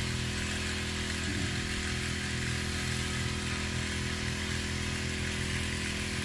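Small petrol engine of a power weed sprayer running steadily at a constant speed, pumping herbicide through a long hose to a spray wand.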